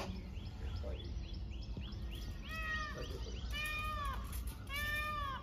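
An animal calling: a run of short cat-like calls, each rising and then falling in pitch, faint and quick at first, then louder and in pairs over the last few seconds.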